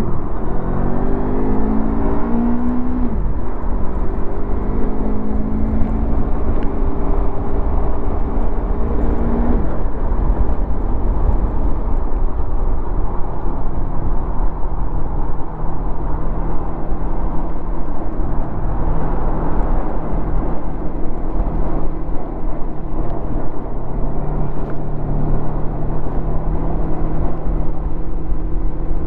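2016 Honda VFR800's V4 engine through its stock exhaust under way: the pitch climbs twice in the first ten seconds, accelerating through the gears, then settles to a steady cruise. A steady rushing noise runs underneath throughout.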